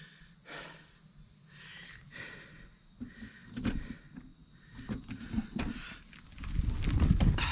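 A cyclist breathing hard to catch his breath after a steep climb, in soft breaths about once a second, with faint short high chirps repeating in the background. About six seconds in, a loud low rumble of wind or movement on the microphone takes over.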